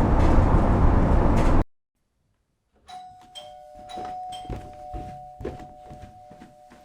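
Road noise inside a moving van, its bare metal panels not yet sound-deadened, cut off abruptly. After a second of silence a two-tone ding-dong doorbell chime sounds and holds, with a few thumps underneath.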